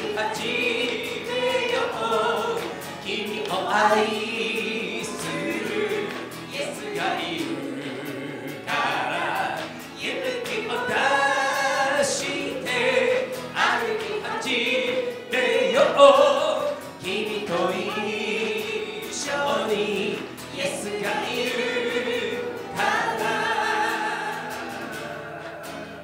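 A woman singing a Christian worship song, accompanied by acoustic guitar.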